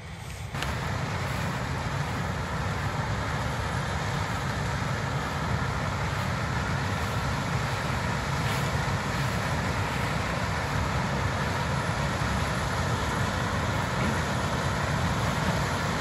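A combine harvester and a tractor pulling a grain cart running steadily side by side while the combine unloads corn into the cart on the go: a constant low machinery drone that starts about half a second in.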